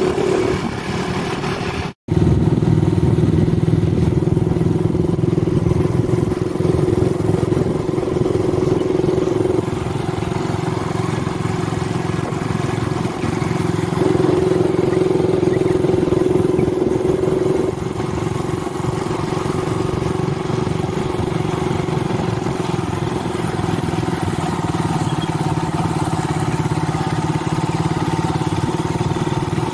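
Motorcycle engine running steadily while riding, its level and pitch stepping up and down a few times. The sound cuts out briefly about two seconds in.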